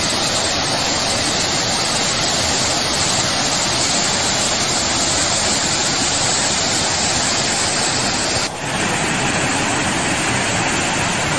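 Torrent of muddy floodwater pouring down a spillway chute and churning into a swollen river, a loud, steady rushing noise. It dips briefly about eight and a half seconds in.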